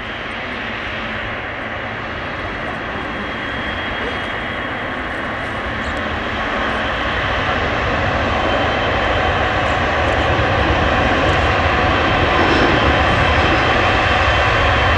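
Boeing 777-300's twin turbofan jet engines running at taxi power: a steady jet whine and rumble that grows gradually louder as the airliner turns toward the listener.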